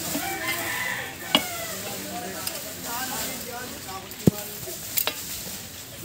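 Dry bamboo leaf litter rustling and crackling as a metal snake tong is pushed and stirred through it. Three sharp knocks come about a second and a half, four seconds and five seconds in.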